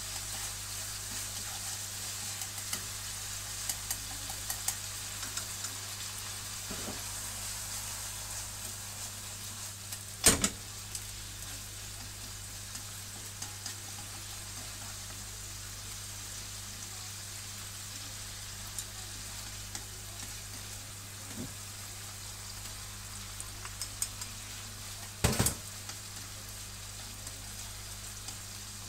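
Chicken skin sizzling as it is stir-fried in a non-stick frying pan, with light clicks of chopsticks stirring against the pan. Two louder knocks come about ten seconds in and near the end, over a steady low hum.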